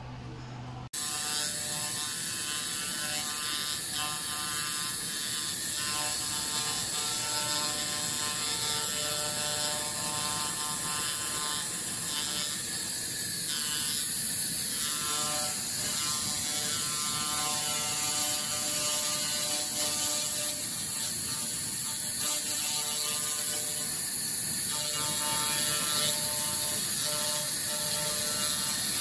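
Handheld fiber laser cleaner ablating rust off carbon steel: a dense, steady crackling buzz with a few steady tones in it, which starts suddenly about a second in.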